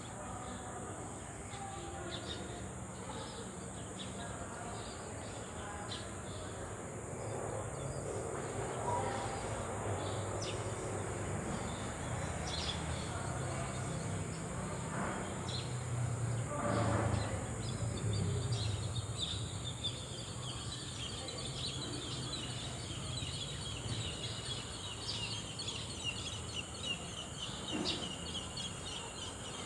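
Birds chirping and calling over a steady low rumble and a constant high hiss, with a busier run of rapid chirps in the second half.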